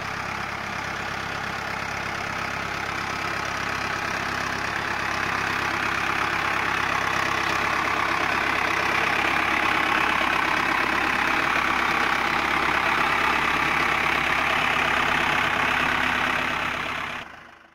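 Mahindra Arjun tractor's diesel engine running steadily while the tractor pushes soil with a front-mounted dozer blade. It grows a little louder a few seconds in and fades out at the end.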